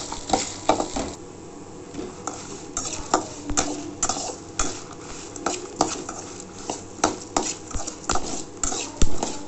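A metal spoon stirring coriander seeds, cumin, urad dal and dried red chillies in a steel pan as they roast: repeated irregular scraping and clinking of metal on metal, several strokes a second.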